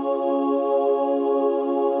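Background music: a held chord of steady tones with a slight pulsing.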